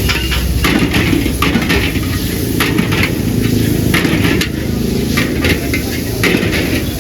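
Metal spatula clanking and scraping against a wok as chowmein is stir-fried, with sizzling; the clanks come irregularly, a few a second.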